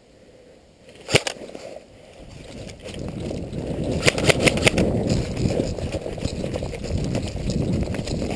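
Quick footsteps and rustling of clothing and gear close to the microphone, as a player moves fast over ground cover. They build up from about two seconds in, after a single sharp click about a second in, with a few more sharp clicks in the middle.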